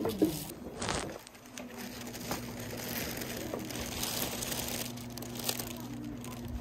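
Rustling and crinkling of paper fabric swatch cards and a plastic shopping bag being handled, over a steady low hum that starts about a second in.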